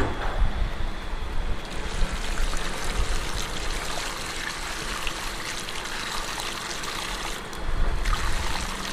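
Foamy, dirty extraction water poured from a plastic extractor tank into a metal drain grate: a steady splashing trickle that starts about two seconds in and swells near the end.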